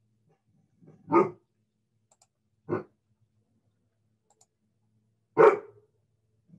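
A dog barking three times over a video call, the last bark the loudest.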